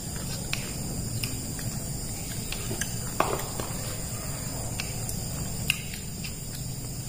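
Small clicks and taps of people eating with their hands from plastic bowls, two sharper clicks standing out, over a steady high insect chirring.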